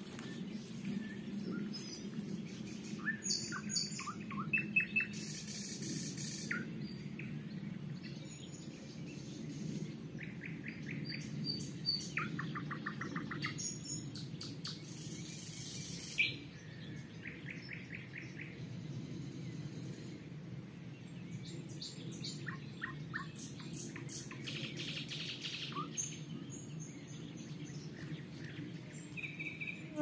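Nightingales singing and answering one another: phrases of fast, rattling trills and short clear whistles, each phrase a few seconds long, with short pauses between, over a faint steady low rumble.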